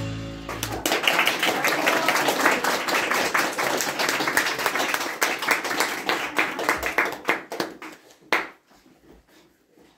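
Music ends in the first second. An audience then applauds for about six seconds, and the applause dies away. One sharp knock follows near the end.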